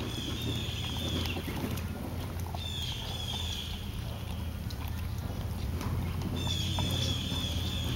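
Great Dane puppy chewing and tearing at a whole raw rabbit, heard as faint scattered crunching clicks over a steady low rumble. A high, buzzy call repeats three times in the background, each lasting about a second.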